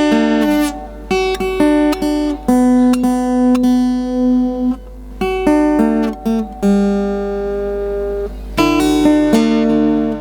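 Acoustic guitar playing an instrumental passage: picked notes and chords, each starting sharply and ringing out, with no singing.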